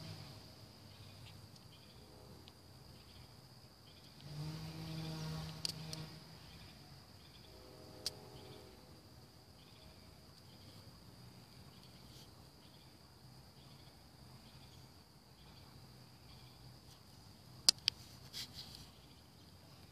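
Insects trilling in a steady, high, continuous drone. A low hum rises and fades about four seconds in, and a few sharp clicks come near the end.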